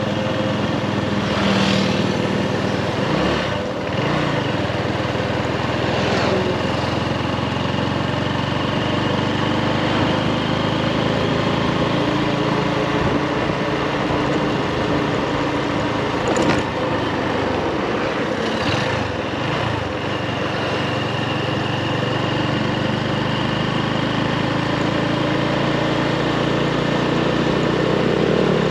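Motorbike engine running steadily while riding, with wind noise over it and a few brief whooshes.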